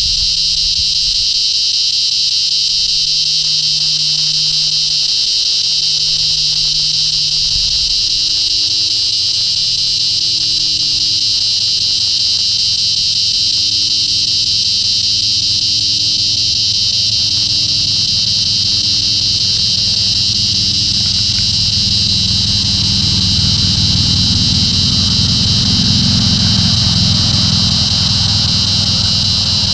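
Resonant cicada (Neotibicen resonans, formerly Tibicen resonans) calling: a loud, continuous, steady high-pitched buzz that does not break.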